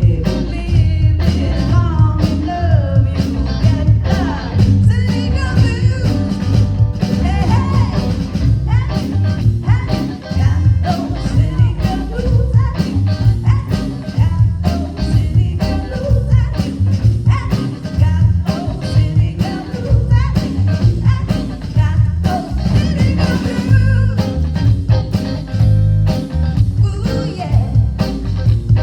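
Live blues played by a trio of guitar, bass guitar and drum kit, with a steady drum beat and bending melodic lines over the groove.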